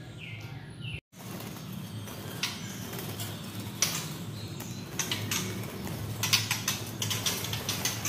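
Caged white-rumped shamas fluttering and hopping, an irregular run of clicks and rattles from wings and feet against the cages, with a few short chirps in the first second. The sound drops out briefly about a second in.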